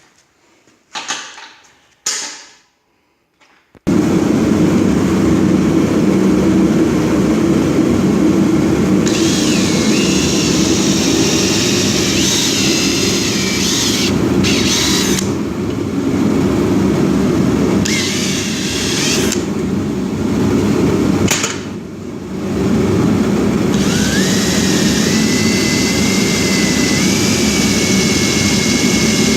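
Power drill running, drilling bolt holes from the bottom up through a snow blade and its rubber wing. It starts abruptly after a few faint clicks and runs in long stretches with a few brief dips, sometimes with a whine that rises in pitch.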